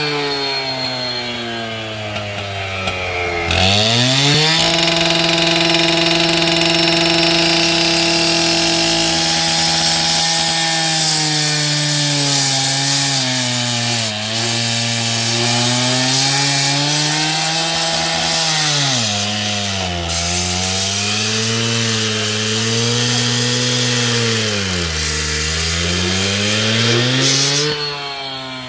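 STIHL TS 800 two-stroke cut-off saw running at a lower speed, then revved to full throttle about three and a half seconds in. It cuts through a masonry block with a gritty grinding of the blade over the engine. The engine pitch dips and recovers several times as the blade loads up in the cut, then drops back near the end.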